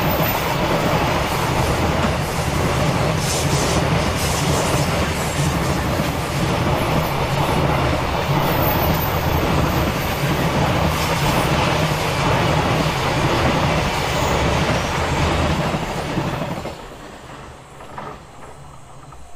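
A long container freight train's wagons rolling past with a steady loud rumble of wheels on rails. The noise falls away suddenly about three-quarters of the way through as the last wagon passes.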